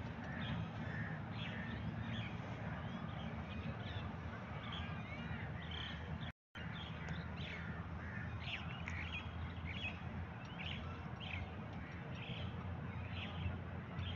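Many birds chirping and calling in quick short notes over a steady low rumble. The sound cuts out for a moment about six seconds in.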